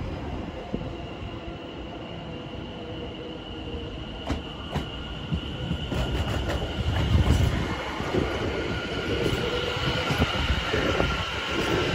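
Greater Anglia Class 720 Aventra electric multiple unit approaching and running past along the platform, growing louder, with a steady high-pitched whine over the rumble of its wheels. A couple of sharp clicks come about four seconds in.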